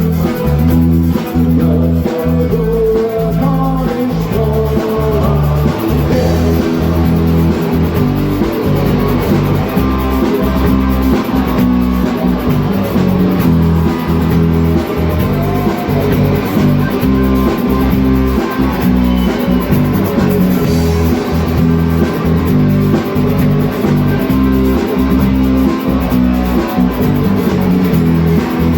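Music: a song with guitar and drum kit, playing steadily.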